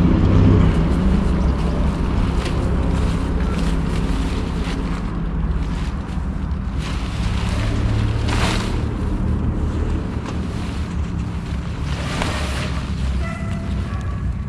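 Wind rumbling on the microphone, with the nylon tent fabric rustling as it is spread and lifted, louder in two short swishes about eight and twelve seconds in.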